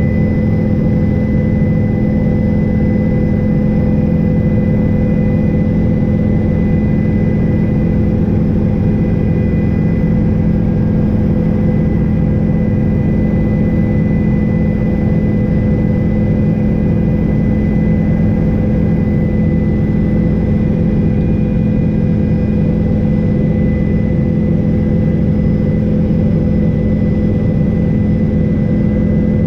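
Helicopter in flight heard from on board: steady rotor and engine noise with a strong low hum and a thin, steady high whine.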